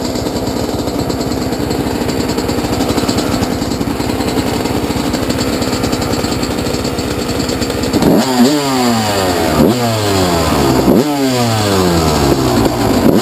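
1998 Kawasaki KX250 single-cylinder two-stroke engine running at a steady idle, then about eight seconds in the throttle is blipped about four times, the revs jumping up sharply and falling back after each blip.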